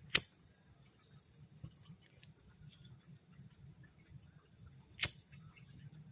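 Steady high-pitched insect trill with two sharp clicks, one just after the start and one about five seconds in.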